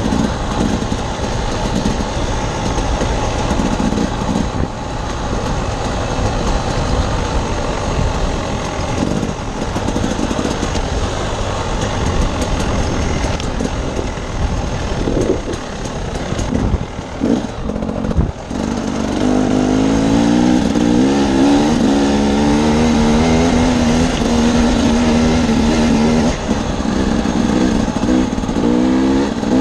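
Two-stroke dirt bike engine running under varying throttle over rough ground. The throttle briefly closes a little past halfway, then the engine holds a steady, louder note.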